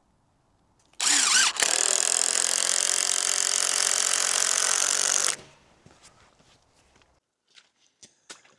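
A handheld power tool runs for about four seconds, starting about a second in and stopping abruptly.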